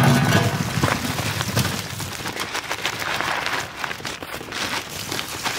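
Raw prawns poured onto a steel plate: a dense run of many small taps on the metal, loudest as the pour begins.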